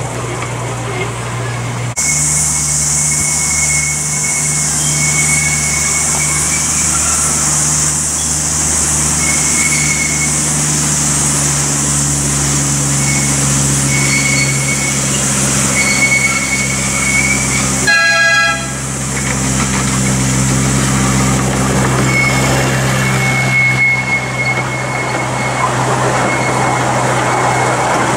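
Miniature ride-on train's locomotive running steadily as it hauls its passenger cars past, with one short horn toot about two-thirds of the way through.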